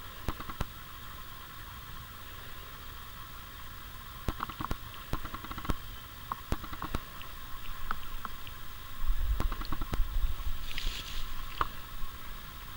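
A cat licking a mushroom cap: irregular soft wet clicks, several a second at times, over a faint steady background. A low rumble comes about three-quarters through, and a short rustling hiss just after it.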